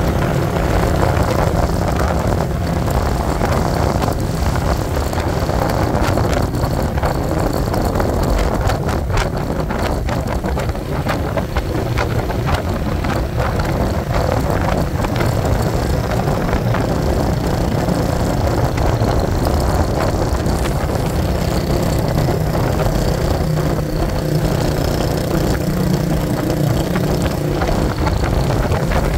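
Motor vehicle engine running steadily, with a low rumble whose pitch drifts slightly up and down.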